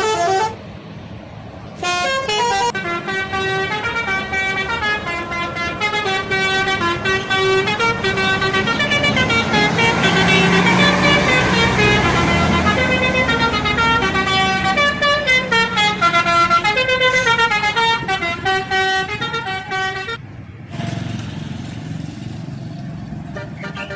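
Bus telolet horn, a multi-tone air horn playing a stepping tune of several notes over the bus's engine. It swells toward the middle and then fades as the bus passes. The horn stops about twenty seconds in, leaving the engine running.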